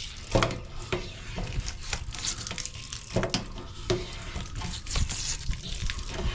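Sediment being raked out of an RV water heater tank through the element opening: irregular gritty scraping and clicking of a tool against the tank and loose hard-water scale.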